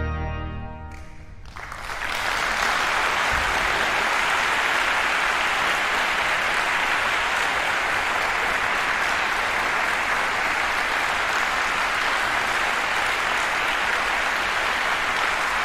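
The final chord of trombone and pipe organ fading out, then audience applause starting about a second and a half in and continuing steadily, greeting the end of the piece.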